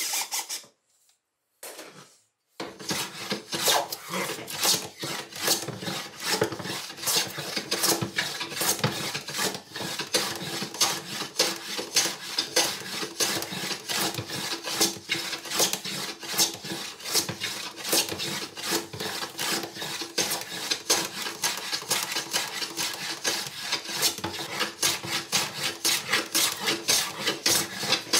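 Metal bench plane shaving a wooden beam by hand: a steady run of quick rasping cutting strokes begins a few seconds in. A cordless drill cuts off just at the start.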